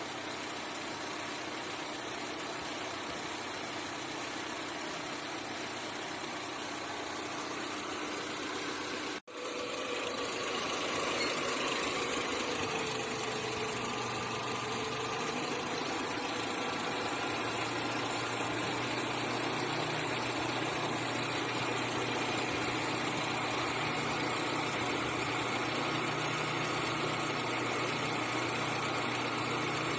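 Car engine idling steadily. The sound cuts out for an instant about nine seconds in, then carries on slightly louder.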